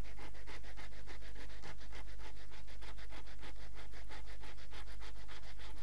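Kitchen knife sawing back and forth through an Umaibo puffed corn stick to cut it into rounds: an even run of short strokes, several a second, over a steady electrical hum.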